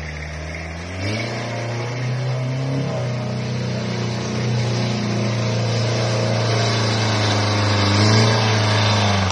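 Pickup truck engine revving under load as it drives through mud, the pitch stepping up about a second in and the sound growing louder as the truck comes closer.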